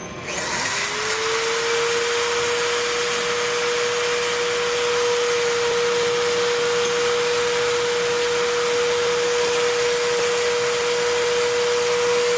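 Electric pipe threader starting up about half a second in and then running steadily with an even whine as its die cuts threads on gas pipe.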